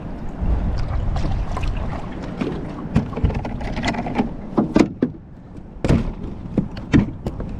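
Wind rumbling on the microphone, with a string of sharp knocks and clatters, the strongest about three, five, six and seven seconds in.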